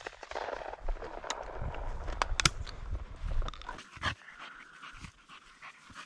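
Hunting dog panting as it works through tall grass, with rustling and several scattered sharp crackles of stems and brush.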